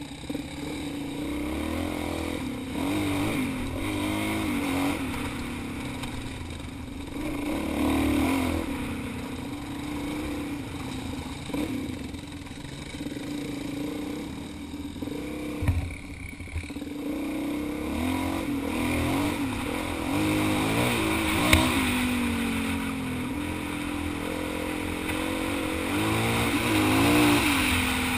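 Dual-sport motorcycle engine running as the bike rides a rough dirt trail, its pitch rising and falling over and over with throttle and gear changes. Two sharp knocks stand out, one about halfway through and a louder one some six seconds later.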